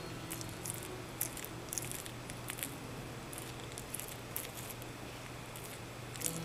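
Blue-tongued skink chewing leafy greens, with irregular crunches and clicks as it bites and works the leaves.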